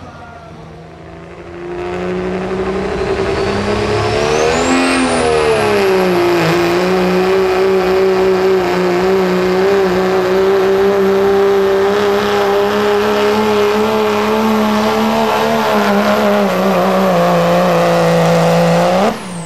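Dodge Ram diesel pickup under full throttle pulling a sled. The engine comes in about two seconds in and revs up with a high turbo whine that climbs and then holds steady. It holds high revs through the run, then drops off suddenly near the end as the driver lifts.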